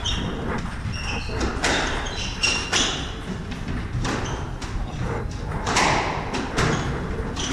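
A squash rally: a rubber squash ball hit with rackets and slapping off the walls in a string of sharp, irregular smacks, with short high squeaks from court shoes on the wooden floor.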